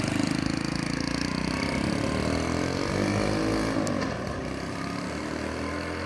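Small single-cylinder four-stroke engine of a modified Honda Little Cub, putting at idle, then revving up and down in pitch as the bike pulls away, growing quieter after about four seconds.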